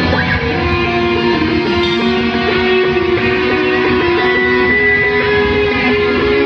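Live rock band playing an instrumental passage, led by electric guitars holding long sustained notes.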